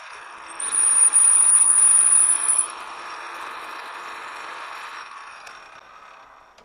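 Metal lathe parting off a turned end cap: the parting tool sets up a loud, high squeal for about two seconds as it cuts through. The lathe then runs on more quietly and winds down to a stop near the end.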